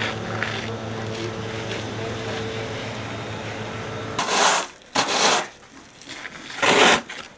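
A steady engine hum, then, about four seconds in, a plastic snow shovel scraping three times over a layer of volcanic ash and lapilli on asphalt.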